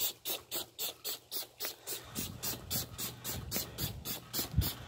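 Cleaning a mildewed vinyl boat seat: fast, even hissing strokes, about four a second.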